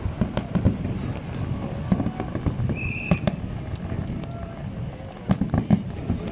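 Aerial fireworks shells bursting in quick succession, a run of booms and crackles, with a cluster of louder bangs about five seconds in.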